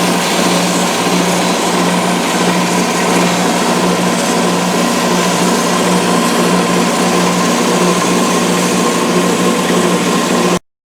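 Wood lathe running steadily with a constant motor hum, cutting off abruptly near the end.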